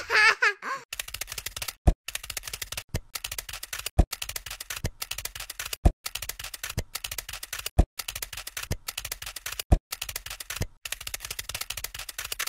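Rapid, dense clicking, like fast typing, with a louder knock about once a second, after a brief laugh at the start.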